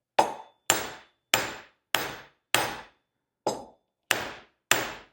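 Eight hammer blows on a steel flatter, driving a wooden wedge down into the eye of an axe handle to spread it tight in the head. Each strike is sharp and rings briefly, coming about every 0.6 s with one longer pause in the middle.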